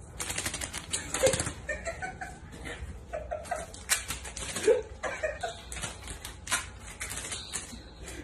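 Paper towel squares stuck to a cat's paws slapping and scuffing on a tile floor as it high-steps and shakes its feet, making a rapid, irregular run of light clicks and rustles. Short bursts of soft laughter come in between.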